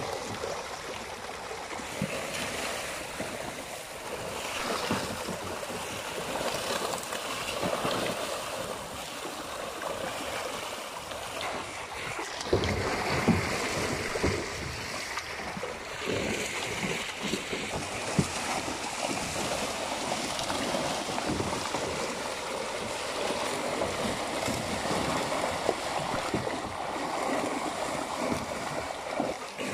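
A big shoal of pangasius (striped catfish) thrashing at the pond surface in a feeding frenzy as they scramble for thrown feed pellets. The water churns continuously, with many sharp splashes and a few louder ones past the middle.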